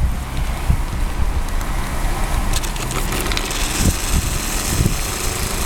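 Mamod double-acting twin-cylinder oscillating marine steam engine starting by itself on steam and running, a hiss of steam rising about two and a half seconds in, over a steady low rumble.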